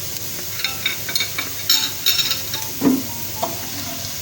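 Cumin seeds and browned onion sizzling in hot oil in a pot, with a spoon stirring and a few short scrapes and clinks against the pot about halfway through.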